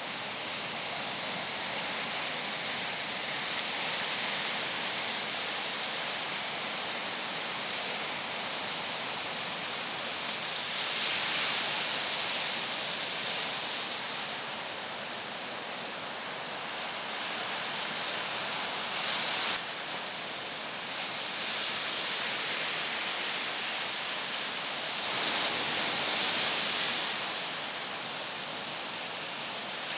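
Ocean surf from typhoon swell: a continuous wash of breaking waves. It swells louder twice, about a third of the way in and again near the end.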